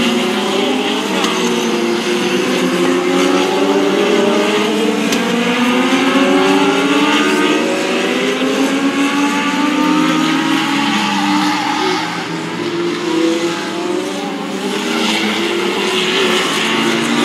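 Legends race cars, running Yamaha motorcycle engines, racing past at full throttle. Several high-revving engines overlap, their pitches rising and falling as they pass, with a brief dip in loudness about twelve seconds in.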